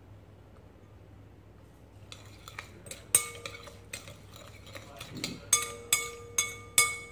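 A spoon stirring and clinking against a glass mixing bowl, starting about two seconds in with light scrapes and then six or seven sharp clinks, the bowl ringing after each.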